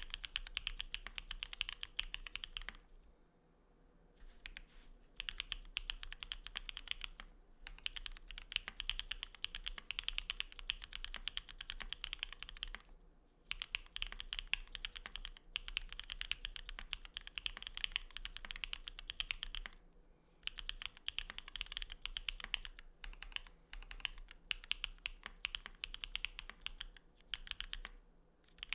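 Fast typing on a Geon Works F1-88 mechanical keyboard with lubed Cherry Cream linear switches (MX black housings, NovelKeys cream stems) on an aluminum plate, under XMI ASCII keycaps. It comes in long runs of rapid keystrokes, broken by brief pauses about three seconds in, and again several times later.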